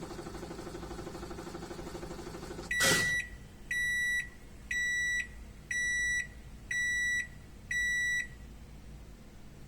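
Sanyo top-loading washing machine's spin cycle running with a steady hum, which cuts off with a sharp click about three seconds in. Six high electronic beeps follow, about one a second, signalling the end of the cycle.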